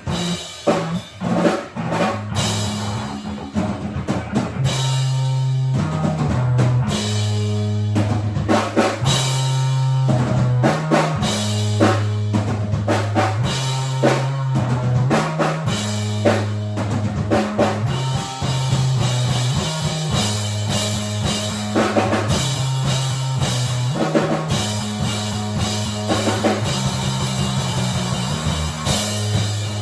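Music from a band: a drum kit keeps a steady beat with bass drum and snare over a low bass line that moves between notes.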